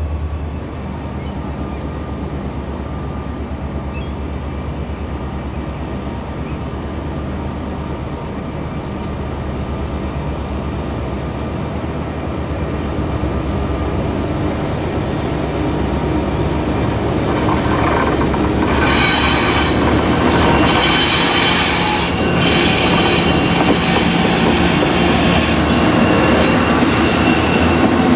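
EMD 20-645 two-stroke diesel engine of the MZ 1450 locomotive running steadily as it hauls a freight train past, growing louder as it comes near. From about 18 seconds in, steel wheels squeal loudly on the rails.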